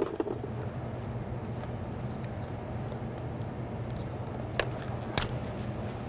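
Hands wrapping electrical tape around a wiring harness: quiet handling with two sharp clicks about four and a half and five seconds in, over a steady low hum.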